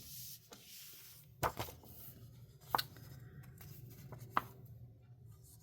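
Paper planner pages being handled and turned, with three short light clicks among faint rustles over a low hum.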